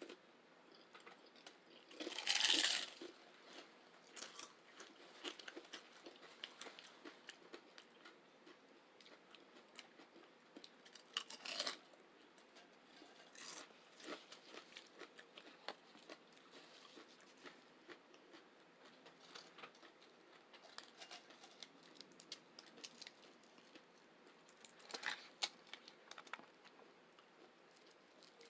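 Close-miked eating of chips loaded with vegetarian chili and beans, sour cream and guacamole. There are three loud crunchy bites: about two seconds in, again near the middle and again near the end. Between them come soft chewing and small mouth clicks.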